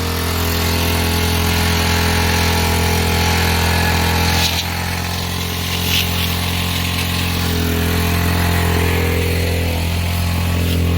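Small gas engine of a Craftsman pressure washer running steadily at an even speed after its carburetor was cleaned out, with a couple of faint clicks about four and a half and six seconds in.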